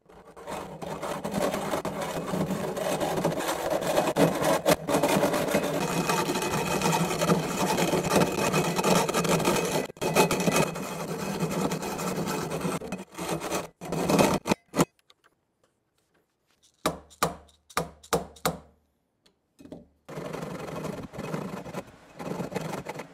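Hacksaw cutting the steel arm of a vertical toggle hold-down clamp, in steady back-and-forth strokes. About fourteen seconds in the sawing stops, a few separate strokes follow, and steady sawing picks up again near the end.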